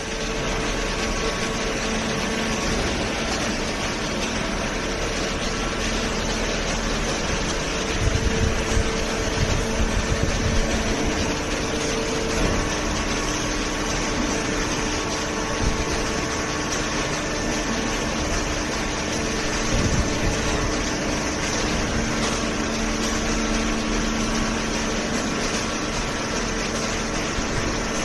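Automatic horizontal hydraulic waste-paper baler and its feed conveyor running: a steady machine drone with a few faint hum tones. Heavier low knocks and rumbles come from about eight to eleven seconds in, and again around twenty seconds in.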